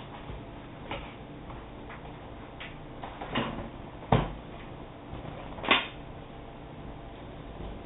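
Scattered light clicks and knocks of objects being handled, with three louder sharp knocks about three and a half, four and nearly six seconds in.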